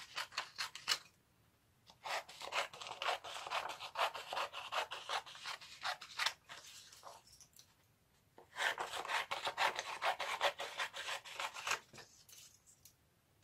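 Scissors cutting a sheet of paper into strips: rapid runs of snipping and rasping blade-on-paper strokes in three stretches, with short pauses between.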